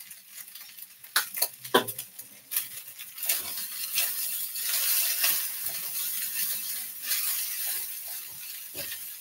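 Fried rice being stirred in a wok with a spatula: a steady hiss with scraping, after a few sharp clicks in the first two seconds.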